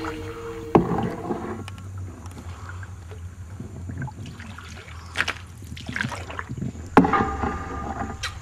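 Sparse experimental soundscape: a sharp struck hit with brief ringing tones about a second in, then scattered knocks and clicks over a low steady hum, and another ringing hit near the end.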